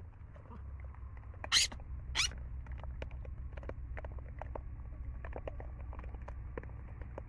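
Two short, harsh calls from hamadryas baboons, a little over half a second apart, the first the louder. Behind them, scattered faint clicks over a steady low rumble.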